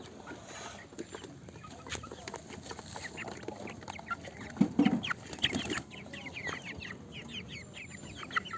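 Kuroiler chicks peeping, many short falling calls overlapping throughout, with a louder, lower sound near the middle.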